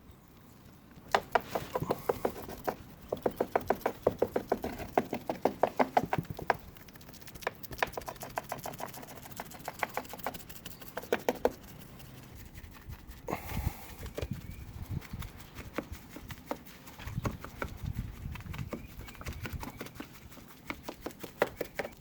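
Wet, rapid ticking of resin being worked into fiberglass mat with a hand applicator. It comes in quick runs of many ticks a second, louder through the first half and lighter and sparser later.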